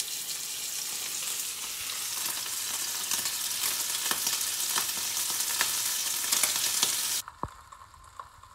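Steak sizzling and crackling in hot oil in a frying pan, fat edge down to crisp the fat. A dense hiss with scattered pops that cuts off abruptly about seven seconds in.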